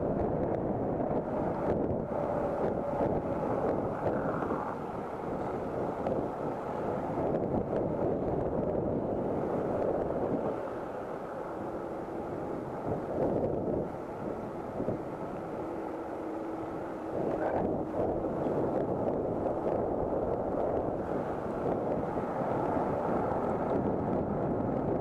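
Wind rushing over an action camera's microphone on an electric scooter riding at road speed, with a steady roar of road and traffic noise. The rush drops for several seconds midway, then returns.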